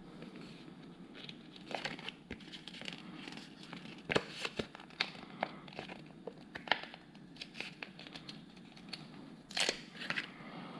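A LEGO sticker sheet crinkling and being peeled, with irregular small clicks and taps from handling the plastic Technic parts as a sticker is placed.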